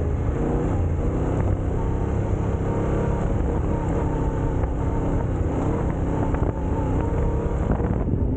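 Motorcycle engine running steadily under way, holding an even pitch.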